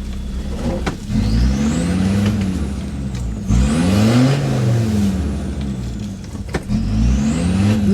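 Land Rover Discovery 2 engine revved up and let back down three times, the pitch rising and falling each time, with a faint high whine rising along with the revs. No drive is getting through: a snapped hydraulic pipe has left the Discovery without drive.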